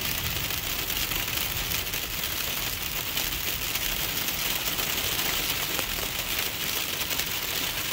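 Freezing rain and sleet pelting a car's windshield and roof in a steady, dense patter of fine ticks, heard from inside the car, with a low rumble underneath.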